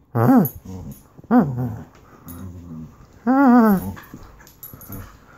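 A dog's playful growl-whines while it mouths a socked foot: three pitched calls that rise and then fall, the last and longest about three and a half seconds in, with fainter low grumbling between.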